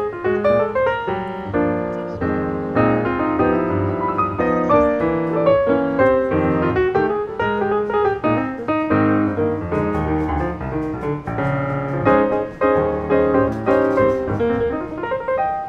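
Piano music, a busy stream of notes with no voice.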